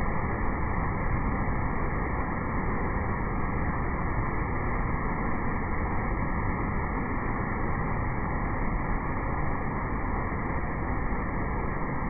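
Cascading waterfall rushing steadily over rocks, a constant dense noise of falling water with no breaks.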